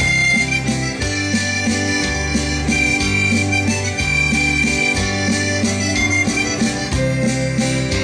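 Instrumental intro of a French country-style song: a Fender electric guitar strummed along with a backing track that carries a held, wind-like lead melody, a repeating bass line and a steady beat.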